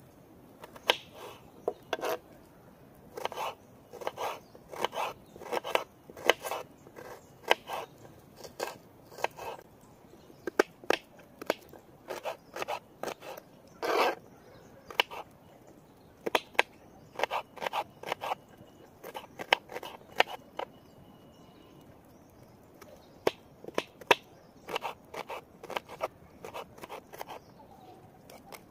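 Kitchen knife cutting an onion on a wooden chopping board: irregular sharp knocks of the blade on the board, with short crunches as it slices through the onion.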